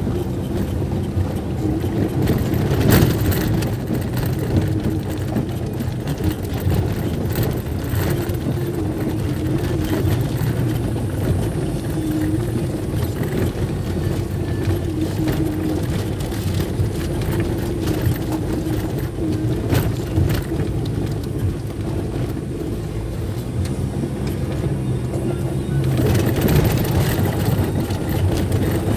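A vehicle's engine running steadily on the move, with a few brief knocks and rattles from the ride over an uneven road.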